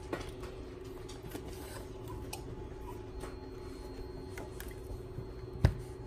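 Small clicks and handling sounds of wire leads and spring clips being worked by hand, with one sharp, louder click near the end, over a faint steady hum.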